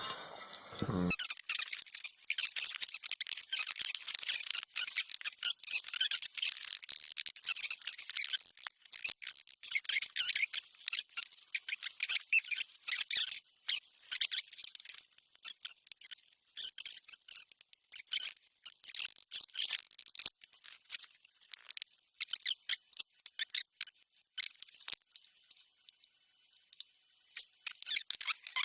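Rapid, high-pitched scratching, clicking and rubbing of hands and tools working on small metal parts of an electric motor while its bearing support is refitted. The sound is thin, with no low end, and grows sparser and quieter in the last few seconds.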